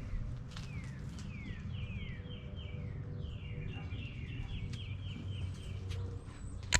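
Small birds chirping: repeated quick falling chirps and rapid trill runs, over a low steady rumble, with a sharp click right at the end.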